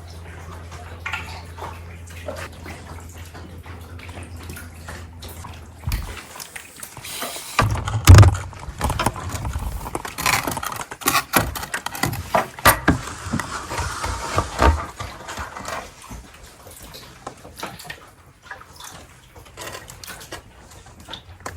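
Kayak paddling on still water: water sloshing and dripping off the paddle, with knocks of the paddle or boat and a loud thump about eight seconds in. A steady low hum runs under the first six seconds.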